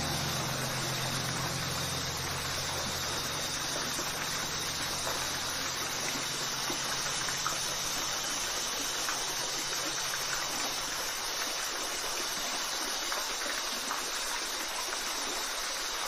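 Steady rush of a waterfall's falling water. Low held music notes fade out over the first ten seconds or so.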